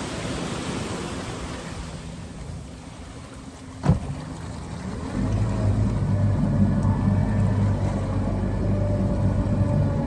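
A boat's motor running with a low steady drone that fades over the first few seconds, a single sharp knock about four seconds in, then the motor droning steadily again from about five seconds.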